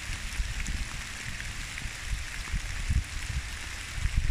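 Wet woodland ambience: a steady hiss of rain and dripping through the trees, with a few faint ticks and irregular low rumbling.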